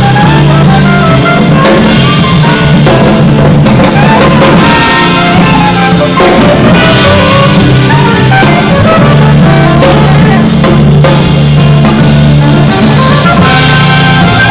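Jazz band playing live: a soprano saxophone plays a melody that moves up and down over a drum kit and upright bass.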